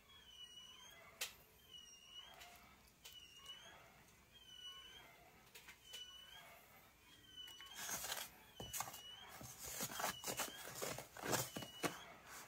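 Flour, sugar, yeast and water being mixed by hand in a stainless steel bowl for mantou dough, with rustling and scraping that gets louder from about eight seconds in. A faint high chirp, dipping in pitch, repeats about once a second underneath.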